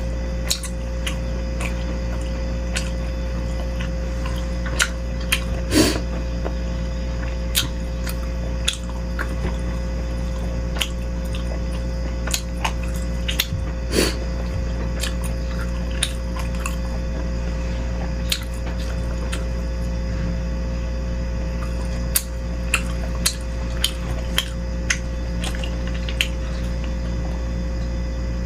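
Close-miked eating of beef rib meatball soup: chewing, wet mouth sounds and short sharp clicks, over a steady low hum.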